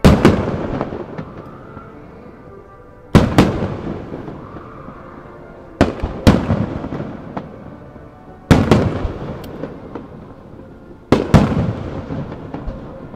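Aerial firework shells bursting: about five loud bangs roughly every three seconds, each dying away over a couple of seconds, with music playing underneath.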